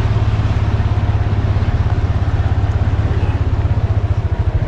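Engine of a small ride-on vehicle running steadily with a fast, even low pulsing.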